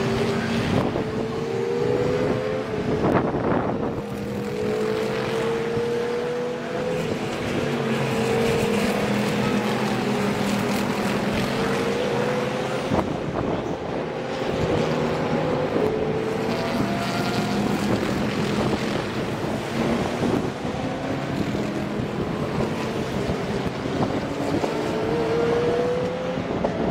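A continuous procession of racing cars passing, their engine notes overlapping and climbing again and again in pitch as each car accelerates out of the corner and pulls through the gears.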